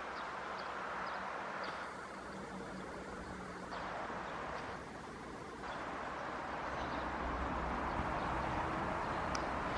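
ČD class 742 diesel-electric locomotive running at the head of a train, a steady low engine rumble that grows louder over the second half.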